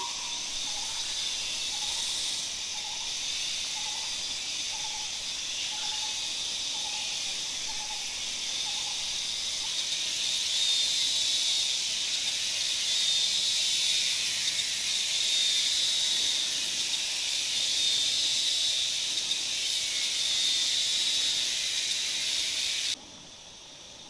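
Dense, steady chorus of insects: a high, shrill buzz that swells a little after about ten seconds and cuts off abruptly near the end. Through the first nine seconds a faint lower call is repeated about one and a half times a second.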